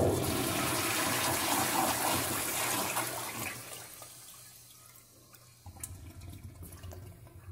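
An American Standard Jetbrook flush-valve toilet flushing: a loud rush of water through the bowl that fades after about three and a half seconds to a quiet trickle.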